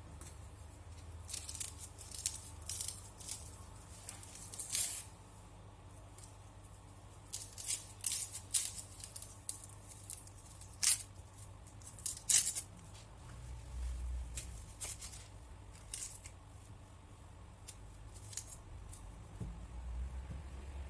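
Food-preparation sounds: an irregular series of short, crisp strokes, thickest between about one and thirteen seconds in.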